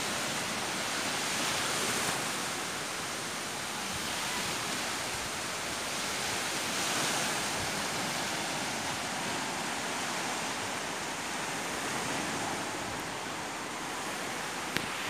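Small waves washing onto a sandy beach: a steady rush that swells and eases slowly, with a single sharp click near the end.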